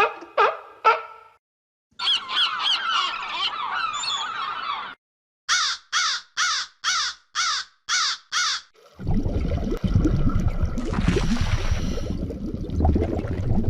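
A run of separate animal recordings: a few short pitched calls at the start, a stretch of rapid chattering calls, then seven harsh, evenly spaced caws, and finally a loud rough low rumbling noise lasting several seconds.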